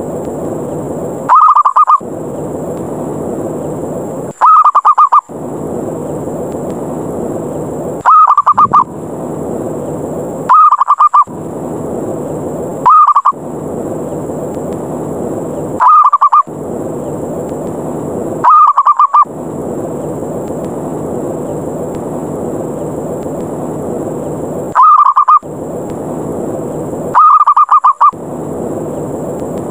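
Zebra dove (perkutut) giving its rapid rolling coo again and again, a loud short call about every two and a half to three seconds. This is the "ngerot" challenge call used as a lure to draw other doves in. A steady rushing background noise fills the gaps between calls.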